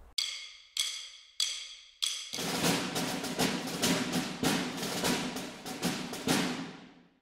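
Outro theme music: four bright struck notes about two-thirds of a second apart, then a busy percussion-driven beat from about two seconds in that fades away near the end.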